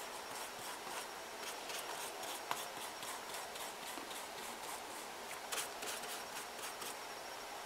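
A flat paintbrush dabbing and scraping against a newspaper paper mache figure: a quick, irregular run of faint taps and scratches, with a few sharper ones near the middle.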